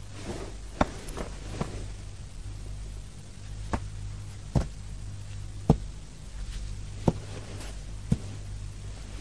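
A series of about eight sharp knocks or taps at irregular intervals over a low steady hum.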